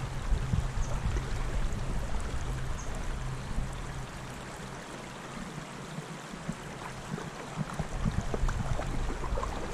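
Small stream running over a shallow gravel riffle: a steady rushing of water, with a low rumble that fades out in the middle and comes back near the end.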